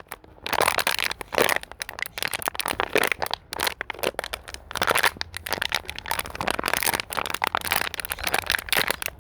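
Plastic bottle being squeezed and crumpled by hand, a dense, irregular run of crinkles and cracks with brief pauses.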